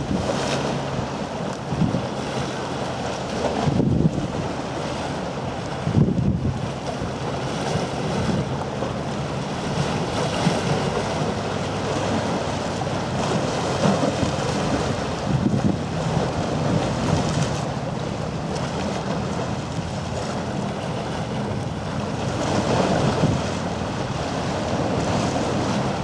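Wind buffeting the microphone over open water, with a steady wash of water noise and a low steady hum underneath.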